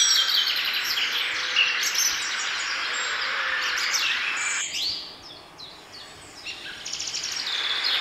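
Many small birds chirping and singing at once, a dense chorus of short high chirps that thins out suddenly about five seconds in and builds up again near the end.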